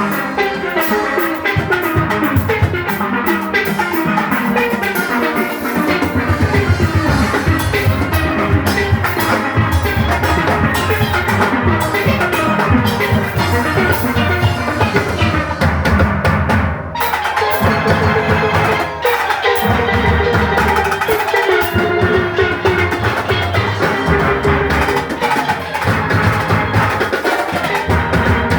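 A steel orchestra playing: many steelpans carry the melody and chords over a driving drum-kit and percussion beat. About two-thirds of the way through, the drums drop out for a couple of seconds, leaving the pans, then come back in.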